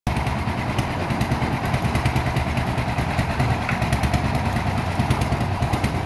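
A concrete mixer's small single-cylinder diesel engine running steadily, turning the drum, with a fast, even beat.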